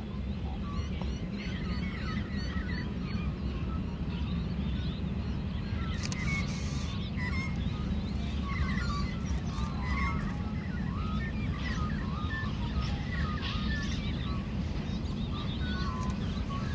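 Many birds calling with short chirps and squawks over a steady low rumble from a distant 59 class 2-8-2 steam locomotive working a freight train.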